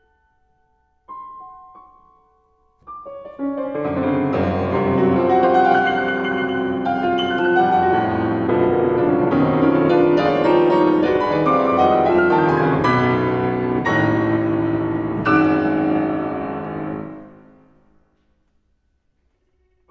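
C. Bechstein grand piano playing alone: two short, separate notes, then from about three and a half seconds in a loud, dense passage of many notes, which dies away near the end.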